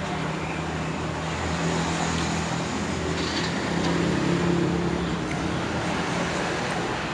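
A motor vehicle engine running steadily, a low, even hum, over road traffic noise.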